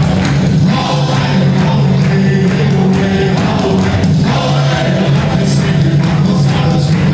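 Live Celtic rock band playing loudly with a steady drum beat, guitars and fiddle, with singing, heard from the audience in the concert hall.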